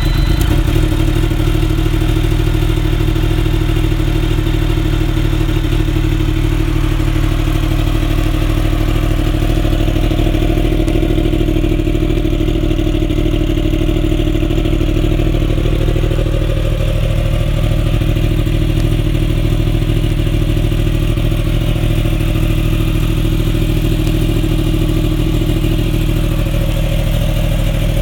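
2015 Yamaha R1's crossplane-crank inline-four idling steadily through a Graves aftermarket exhaust.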